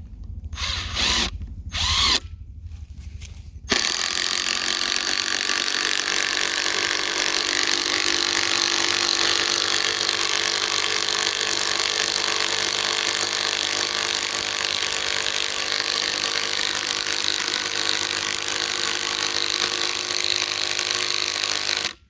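Hart 20-volt 3/8-inch cordless impact wrench driving a lag bolt into wood with a 7/16 socket. A few short trigger bursts are followed by about eighteen seconds of steady hammering, which stops suddenly. It sinks the lag without trouble.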